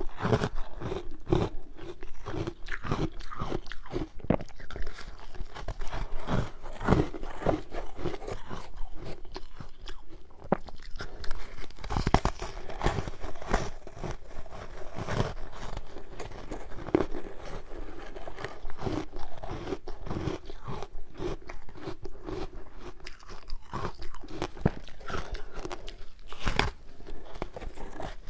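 Ice being bitten and chewed close to the microphone: a steady run of irregular crunches and cracks.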